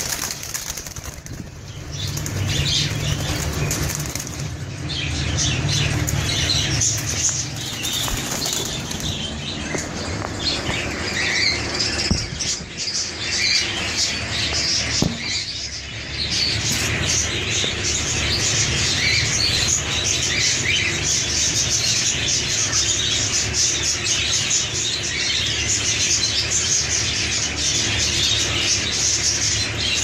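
A flock of cockatiels chirping and chattering, with wings flapping now and then, in a continuous busy din.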